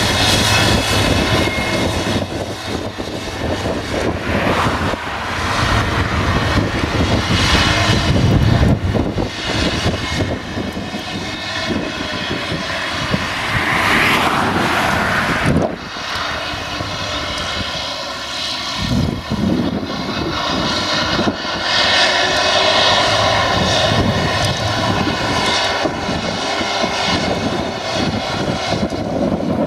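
Tractor engine running under load while its front and rear Pöttinger disc mowers spin and cut grass, a steady droning hum with a high mechanical whine over it.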